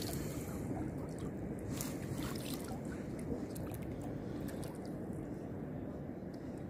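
Hands splashing lightly in shallow water as a small fish is let go at the water's edge: a few soft splashes and trickles over a steady low rush.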